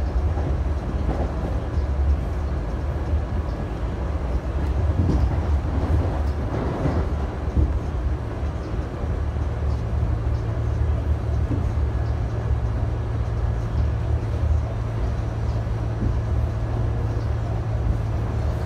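R68A subway car running along the track, heard from inside the car: a steady rumble of wheels on rail with some clatter. A steady low hum comes in about halfway through.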